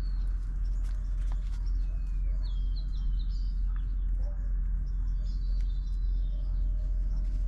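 Birds chirping in short rising and falling calls over a steady low hum, with a few faint clicks.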